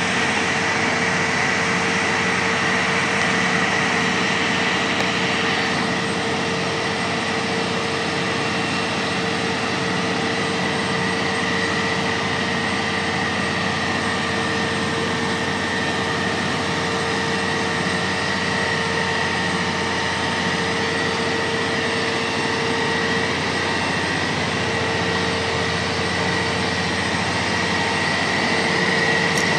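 Large Manitowoc crawler crane's diesel engine and hydraulics running steadily under load during a heavy lift, with a steady high whine over the engine drone.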